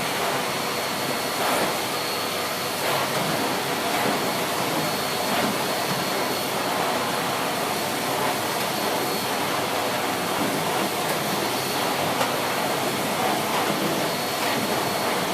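Siemens Z6.0 Power 2500 W bagged cylinder vacuum cleaner running steadily on a low power setting with its combination floor head on carpet: a constant rush of air with a thin high whine over it. On this setting it is very quiet.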